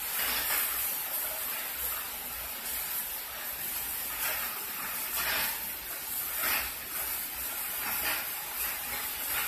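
Heavy hurricane rain and wind: a steady rushing hiss that swells in several gusts.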